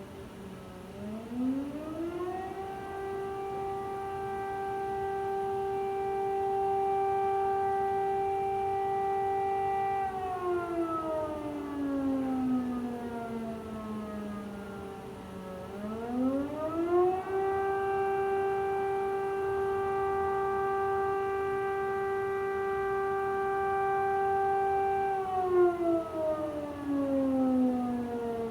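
Air raid siren winding up to a steady wail, holding it for about eight seconds, then winding down. It then winds up and down a second time.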